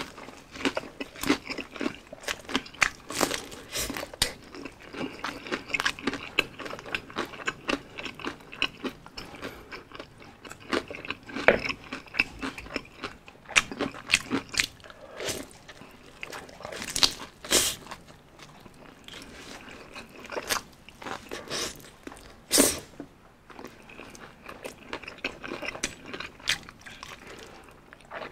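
Crispy breaded fried chicken being bitten and chewed: many sharp crunches of the coating, with chewing between.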